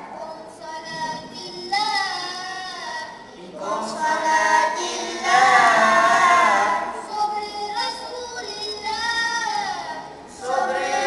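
A group of boys singing together in unison, in sung phrases with short breaks between them.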